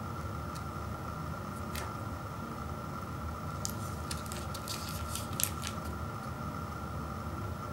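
Foil-lined Kit Kat snack-size wrapper being torn and peeled open by hand: a couple of faint crinkles, then a cluster of crackly crinkles and tearing in the middle, ending in one sharper crackle. A steady low background hum runs underneath.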